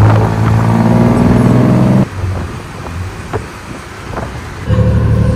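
Tuk-tuk engine heard from the passenger seat, revving with its pitch climbing for about two seconds, then dropping off suddenly to the hum of surrounding traffic. The engine pulls loud again near the end.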